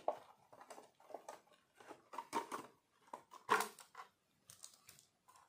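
Plastic body shell of a 1/18 KKPIT HG-18 RC crawler being pulled off its chassis by hand. Irregular small plastic clicks and knocks, the loudest about three and a half seconds in.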